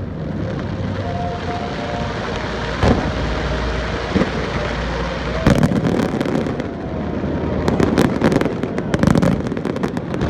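Fireworks display: a continuous rumble of aerial shell bursts with many sharp cracks and pops, coming thickest about halfway through and again near the end.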